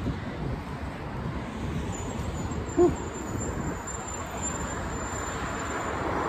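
Steady hiss of road traffic, with one short low hoot a little under three seconds in and a faint high whine from about two seconds on.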